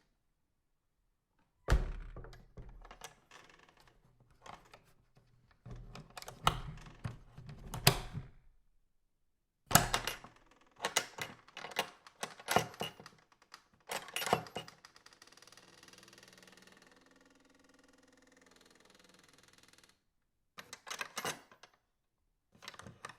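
Old farm door being worked. There is a heavy thud, then a run of knocks and rattles; after a second thud, more rattling clicks. A long, wavering creak of the hinges follows, and the latch clacks shut twice near the end.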